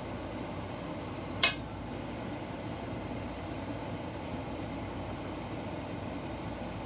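A single sharp metallic clink, a spoon striking the stainless steel mixing bowl of filling, about a second and a half in. It sits over a steady background rush.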